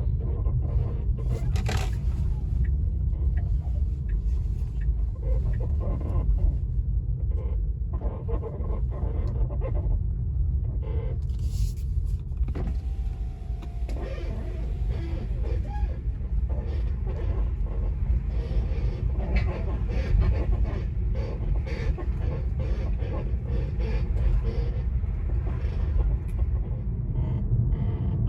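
Tesla Model 3 Performance front suspension creaking and clicking as it works, with a drawn-out wavering squeak about halfway through, over a steady low rumble. The owner traces the squeaks to worn front control arms (Querlenker) at about 85,000 km.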